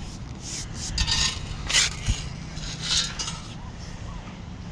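Short scuffing and crunching noises in dry beach sand, several in a row at uneven intervals, from feet in flip-flops and a metal detector coil moving over the sand.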